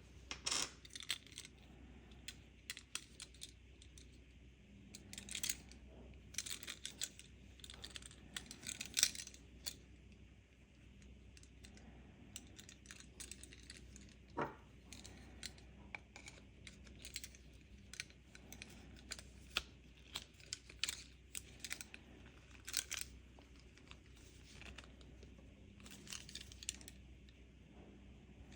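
Irregular small clicks, taps and light rattles of a car key fob's plastic shell and metal key being handled, with one short squeak about halfway through.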